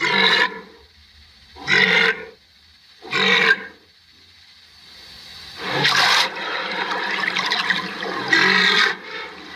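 Rhinoceros calling: three short, harsh calls about a second and a half apart, then a longer, noisier call of about three seconds that is loudest near its start and its end.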